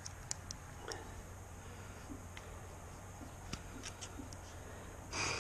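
Faint scattered ticks and small scrapes of a surgical scalpel cutting through the ends of a rope crankshaft oil seal.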